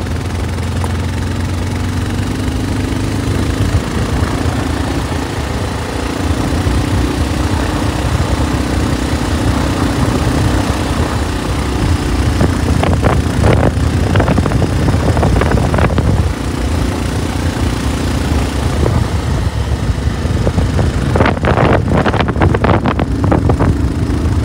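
Single-cylinder engine of a Bajaj Pulsar 220F motorcycle running steadily under way over rushing wind noise, its note dipping briefly a few times as the throttle changes. Clusters of short knocks or rattles come about halfway through and again near the end.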